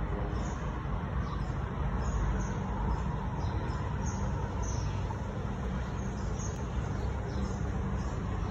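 Steady low rumble of road traffic, with short high chirps repeating irregularly about once a second.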